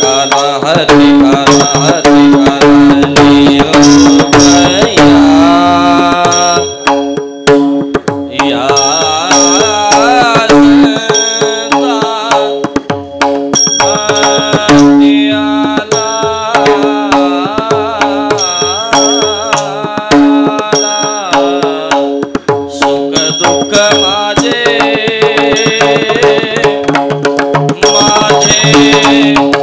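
Instrumental interlude of a Marathi devotional abhang: a hand drum plays a steady rhythm over a melody instrument with a held drone, with regular bright metallic strokes.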